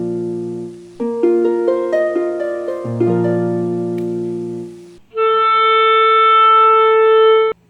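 Instrumental background music: plucked notes in repeating phrases, then one held note for about two seconds that cuts off abruptly just before the end.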